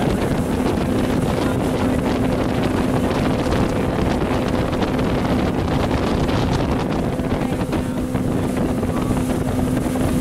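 Motorboat engine running steadily at cruising speed, a constant drone, with wind buffeting the microphone.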